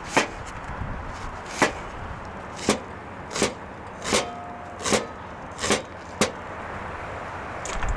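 Large chef's knife slicing an onion on a wooden cutting board, each stroke ending in a sharp knock of the blade on the board: about eight knocks, unevenly spaced.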